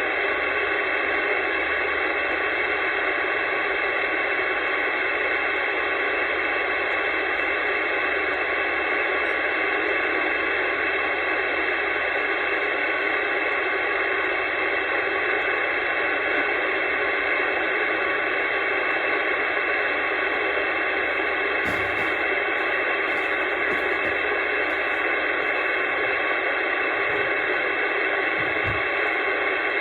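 Steady hiss of static from a CB radio's speaker on a channel where nobody is transmitting, heard between skip contacts.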